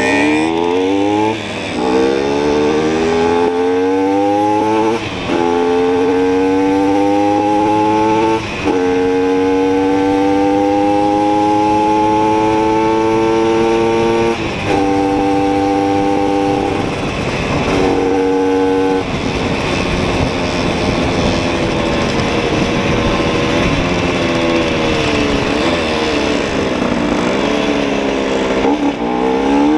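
Simson two-stroke moped engine, heard from on the bike, accelerating up through the gears: the pitch climbs and drops at four upshifts, then holds steady. Later the engine backs off into a rougher stretch with road and wind noise, and revs up again near the end.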